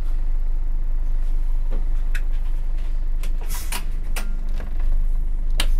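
Scania OmniExpress coach's diesel engine idling in the cab. The front door closes with a hiss of air about three and a half seconds in, then knocks and a sharp click near the end.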